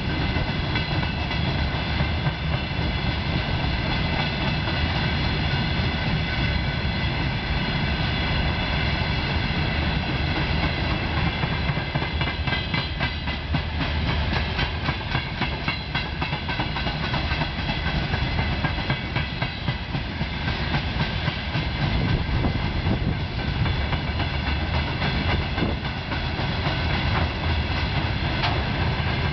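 Long freight train of open-top gondola wagons rolling past at steady speed: a continuous low rumble with wheels clattering over rail joints and a steady high ringing over the top.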